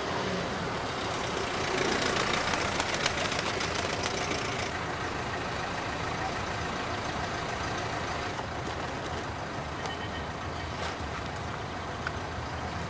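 A taxi car running: steady engine and road noise.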